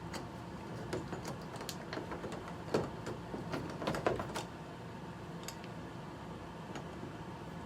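Doorknob hardware being fitted into a door: scattered metal clicks and light knocks, the loudest about three and four seconds in, then quieter.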